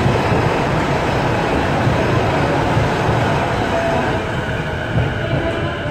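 A train running past the station platform, a loud steady rush of rail noise that eases slightly about four seconds in.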